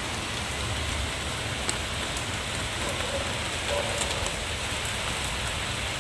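Heavy rain pouring down steadily, with a few sharper drop ticks standing out now and then.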